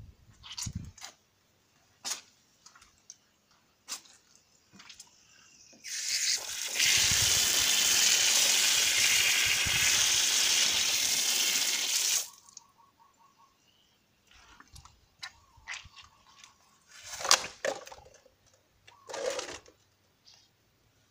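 Water running hard from an outdoor ball-valve tap, splashing over a hand and onto potting soil. It starts about six seconds in, runs for about six seconds, and stops abruptly. Scattered short clicks come before and after it.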